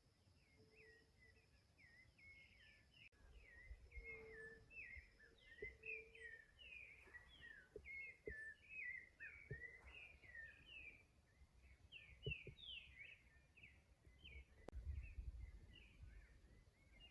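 Faint, busy chirping of small birds: many quick, short notes tumbling over one another, with a few soft clicks in between.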